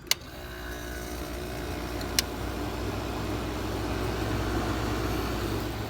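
Kenmore (Whirlpool) 5,000 BTU window air conditioner starting up: a sharp click, then the fan and its Matsushita rotary compressor coming on and running with a steady, very quiet hum that builds over the first couple of seconds. A second sharp click about two seconds in.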